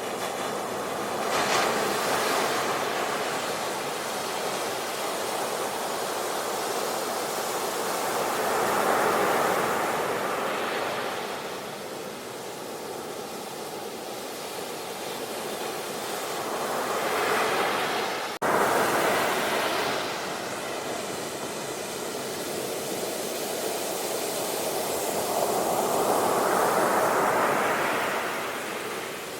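Ocean surf washing onto a beach: a steady hiss of water that swells and fades with each wave, about every eight seconds. There is a momentary break in the sound a little past halfway.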